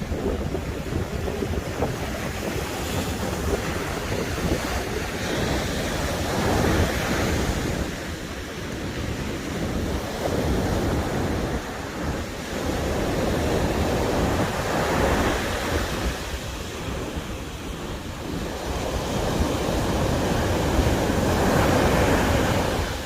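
Sea waves washing ashore, swelling and falling back three times, with wind buffeting the microphone as a low rumble.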